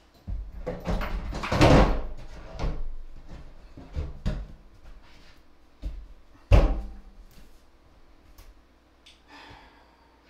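Stainless steel drop-in kitchen sink being lowered into its countertop cutout, scraping and knocking against the edge of the opening. Several knocks follow, the loudest and sharpest about six and a half seconds in as it is pressed down into place.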